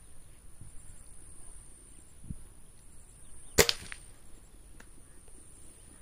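A single sharp crack of an air rifle firing a shot, a little past halfway through; otherwise only faint background.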